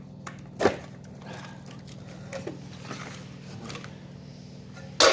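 Hand tools and a plastic battery casing being handled and pried during a teardown: a sharp knock early, scattered small clicks, and a louder clattering knock near the end, over a steady low hum.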